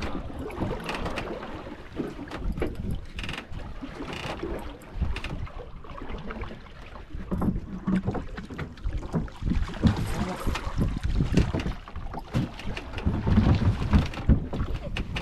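Wind buffeting the microphone and water sloshing against the hull of a small fishing boat, with scattered knocks and thumps from the deck and tackle while a fish is fought on rod and reel.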